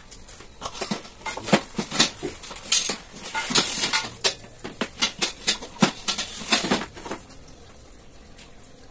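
Painted steel frame bars of an IKEA LERBERG shelf knocking and clattering against each other as they are handled and fitted together, a quick irregular run of sharp clanks and clicks that stops about seven seconds in.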